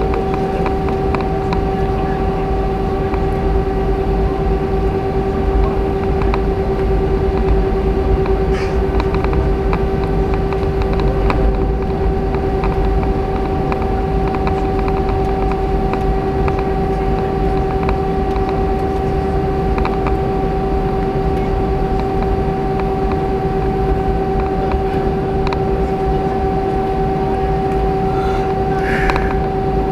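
Airbus A319 cabin noise while taxiing after landing: a steady drone with a constant low hum and a rumble from the moving aircraft, with a few light knocks.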